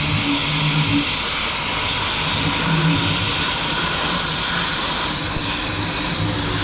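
Cutting torch running with a steady hissing roar.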